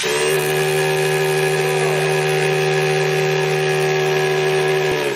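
Milwaukee M18 FHP cordless rotary hammer drilling into a concrete block, running steadily at a constant pitch and cutting off suddenly about five seconds in.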